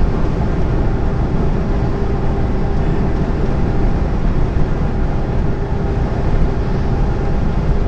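Steady noise inside a lorry's cab at motorway speed: engine drone with tyre and wind noise and a steady hum.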